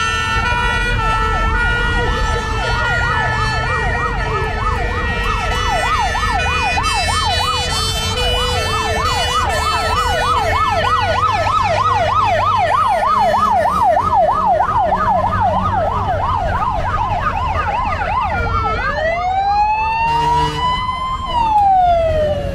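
Fire engine sirens sounding together: a two-tone hi-lo siren alternating at the start, overlapping a fast electronic yelp that sweeps up and down several times a second. Near the end a single slow wail rises and then falls, over the low rumble of the engines.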